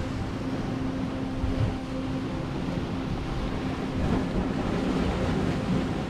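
Sea surf breaking and washing over rocks: a steady rush of waves that swells and eases slightly, with a faint low steady hum underneath.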